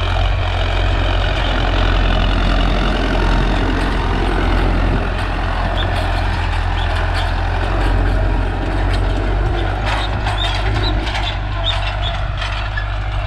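Farmtrac 6055 tractor's diesel engine running steadily under load in high second gear at about 1700 rpm, pulling an 18-disc harrow through dry soil. A few sharp clicks come near the end.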